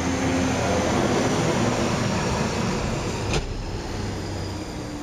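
Motor vehicle going by: a steady rushing noise with a low hum, which eases after a sharp click about three and a half seconds in.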